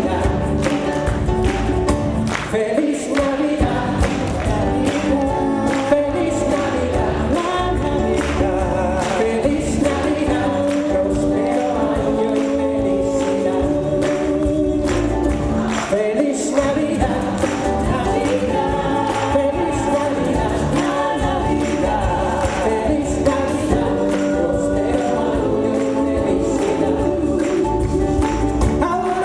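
A choir singing a gospel-style song with instrumental backing and a steady beat.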